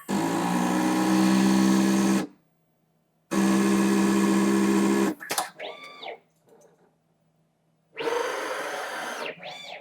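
CNC router's automatic tool changer cycling to load a tool into the spindle. Two steady, loud mechanical runs of about two seconds each, then short motor whines rising and falling in pitch and a last noisy burst near the end.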